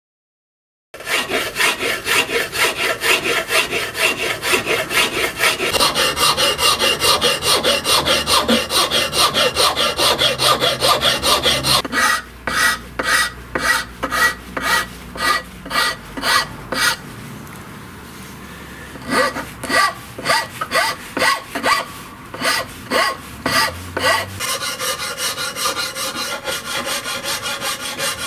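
Hand file rasping over a dark handle blank held in a vise, in quick regular back-and-forth strokes starting about a second in. About halfway through the strokes slow to about two a second and pause briefly, then pick up again and turn quicker and lighter near the end.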